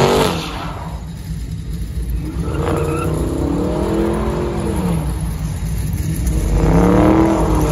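Vehicle engine revved hard during a burnout, its pitch rising and falling in several swells over a steady low rumble.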